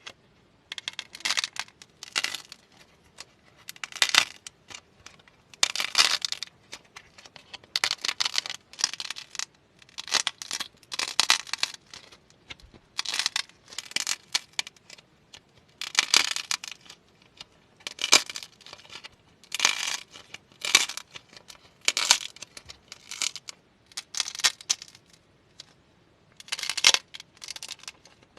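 Clay being cracked and crumbled by hand: a run of short, crisp crackles, each lasting under a second, coming about once every second or two.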